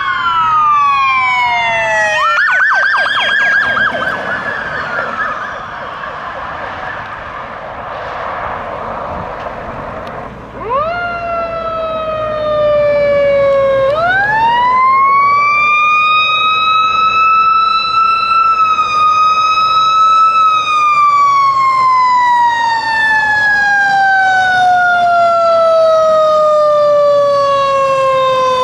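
Fire truck siren running while responding: a falling wail, then a few seconds of fast warbling yelp, then after about 14 seconds it winds up to a high pitch, holds briefly and winds slowly down over several seconds.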